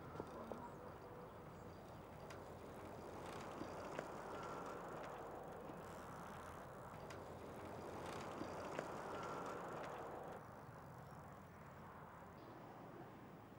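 Bicycles rolling along a paved road: a steady hiss of tyres with a few scattered clicks and rattles, dropping quieter about ten seconds in.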